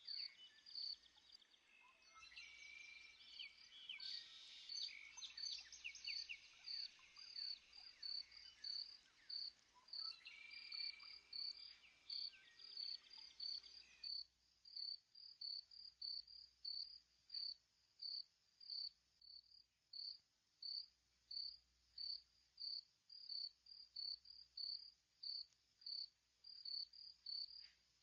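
An insect, cricket-like, chirping in an even rhythm, about one and a half chirps a second. For the first half, a busier layer of varied chirps, like birdsong, runs alongside it and stops abruptly about halfway through.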